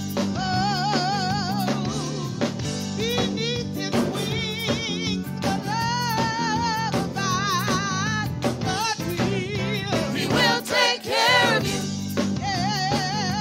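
A woman sings a gospel solo with strong vibrato on her long held notes, over a band with drums and steady low accompaniment.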